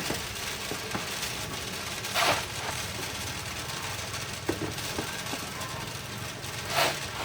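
A motor-driven machine running steadily with a low hum, with two short rushing bursts about four and a half seconds apart and a few small clicks.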